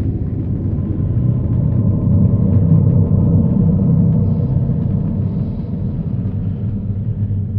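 Dark ambient drone: a dense low rumble carrying several steady, held low tones, swelling a little a few seconds in.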